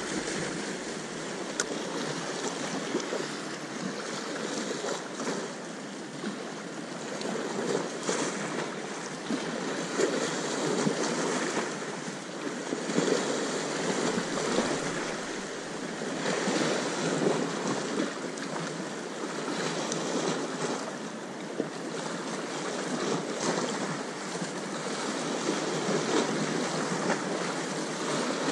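Sea waves washing onto the shore, the surf swelling and easing every few seconds.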